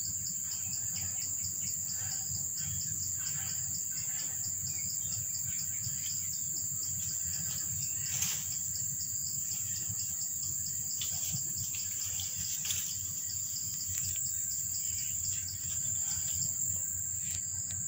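Steady, high-pitched insect trilling with a fast, even pulse, over a low background rumble.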